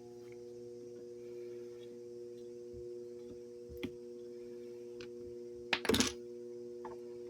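Kawamoto N3-156SH well pump motor humming steadily with a pure mains-type hum while not yet turning, the stalled hum of a stuck rotor, with a few light clicks and a short double knock about six seconds in.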